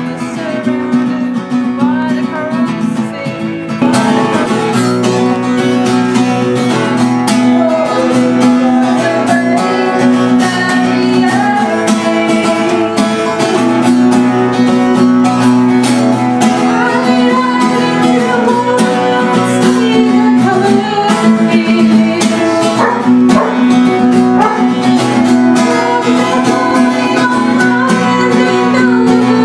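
Acoustic guitar strummed to accompany a sung folk-style song. It gets fuller and louder about four seconds in.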